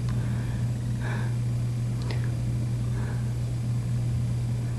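A steady low hum, with a faint click about two seconds in.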